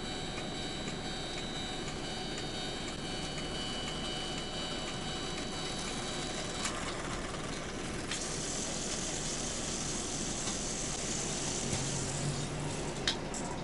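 O-gauge model railway crossing signal ringing its repeating warning tone, which stops with a click about halfway through. Several seconds of steady mechanical whirring follow, with a sharp click near the end.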